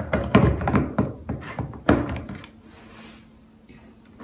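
Plastic Funko Pop display bases knocking and clicking together as the Hulk figure's base is fitted onto the connecting centerpiece: a cluster of several sharp knocks over the first two and a half seconds.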